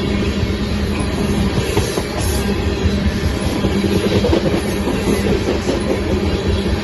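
Train running along the track: loud, steady running noise with a low steady hum underneath.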